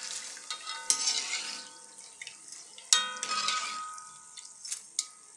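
A wire-mesh frying strainer knocks against the pan four times as deep-fried potato strips are lifted out of hot oil. Each knock rings briefly, and the loudest comes about three seconds in. Between the knocks, oil sizzles and drips back into the pan, fading in between.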